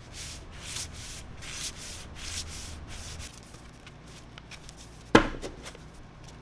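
Paper envelope flaps being thumbed open one after another off a stack, a quick run of dry paper swishes, a few a second. A single sharp slap about five seconds in.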